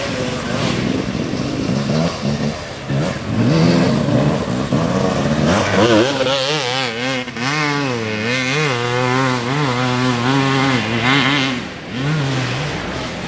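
Off-road dirt bike engine revving hard under load as it climbs a steep muddy slope, its pitch swinging up and down about every half second with the throttle. It is loudest and clearest in the middle, as the bike passes close by.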